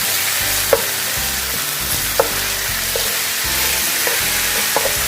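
Chicken pieces sizzling steadily in hot oil in a pan while being stirred, with a utensil clicking against the pan three times.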